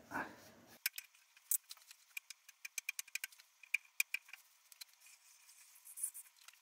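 Light clicks and taps as a template is laid down and shifted on a thin steel sheet, the sheet giving a faint metallic ring with each tap. Near the end, a pen scratches along the template's edge as it is traced onto the steel.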